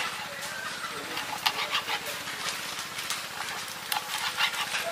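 Kitchen knife cutting the claw tips off chicken feet on a plastic cutting board: several sharp knocks of the blade on the board, the loudest about a second and a half in, over steady background noise.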